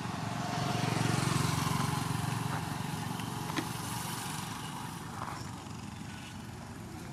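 A motor vehicle passing on the road: its engine and tyre noise swells, is loudest about a second in, then slowly fades away.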